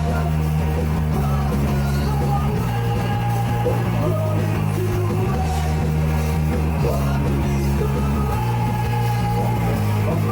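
Rock band playing live at full volume: distorted electric guitars and bass hold long low chords that change every couple of seconds, over drums.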